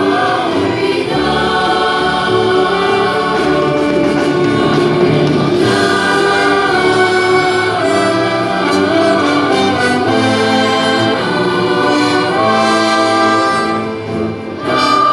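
Youth symphony orchestra and choir performing together, the choir singing held chords over the orchestra, with a brief dip in loudness near the end.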